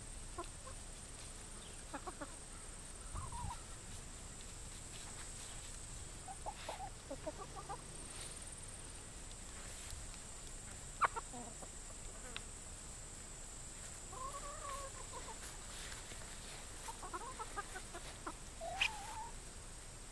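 Hens clucking in short, scattered calls while they forage, with a couple of sharper, louder calls, one about halfway through and one near the end.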